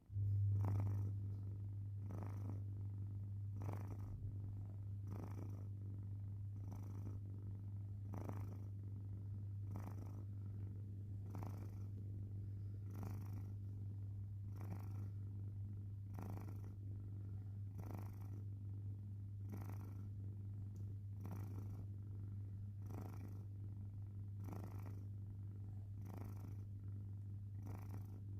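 Domestic cat snoring in its sleep: a steady low drone with a soft breath about once a second.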